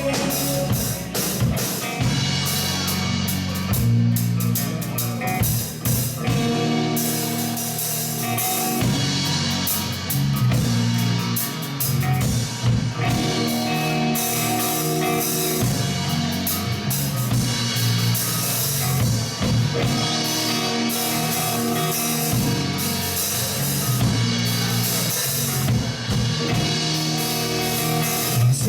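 Live rock band playing an instrumental passage: drum kit keeping a steady beat under electric guitars and bass, with no vocals.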